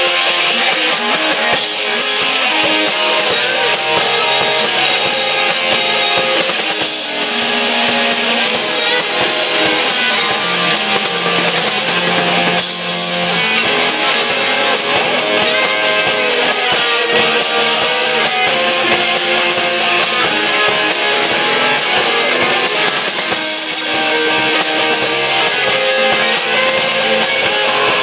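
Live rock band playing electric guitars over a drum kit, with frequent drum and cymbal hits.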